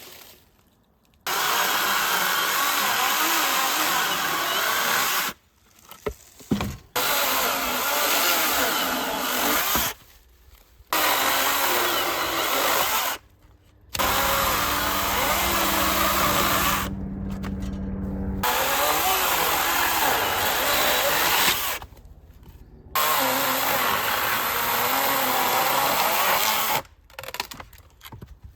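Chainsaw cutting firewood, running loud in about five stretches of several seconds each, its pitch wavering under load, with abrupt short breaks between them.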